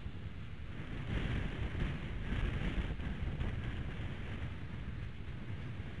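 High wind blowing on an outdoor nest-cam microphone: a steady low rumble, with a gust swelling about a second in and easing off about three seconds in.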